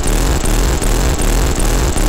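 Harsh electronic noise from Noise Rumble noise-synth pedals run through a Korg KP3 effects pad: a heavy low rumble under a loud wash of hiss, pulsing steadily about five times in two seconds.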